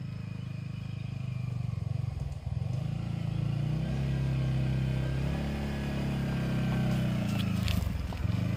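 A Yamaha R15 sport bike's single-cylinder engine running at low revs as it picks its way slowly over a rough, rocky track, growing louder as it comes closer. The engine note dips and picks up again with the throttle, and a few sharp clicks come near the end.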